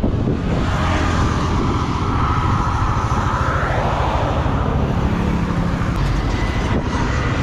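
On-board riding noise from a motorcycle: the engine running with wind rushing over the rider's camera microphone, plus road noise from the concrete surface. It starts abruptly and stays loud and steady, with a higher whine that fades out about halfway through.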